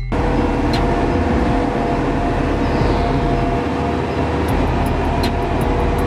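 JCB Vibromax single-drum road roller running, its diesel engine giving a steady, loud noise with a few held tones, cutting in suddenly and joined by occasional sharp clicks.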